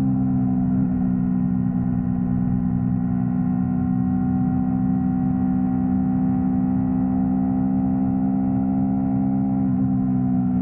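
Yamaha R3's parallel-twin engine running at steady revs, a constant drone that eases slightly in pitch in the first second and then holds level.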